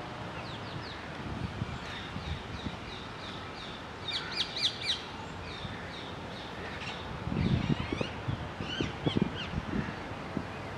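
Birds chirping all around in short, high, repeated notes, with crows cawing. Low rumbling bumps of wind or handling noise come in the second half.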